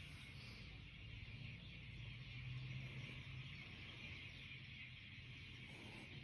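Faint room tone: a steady hiss with a low hum underneath.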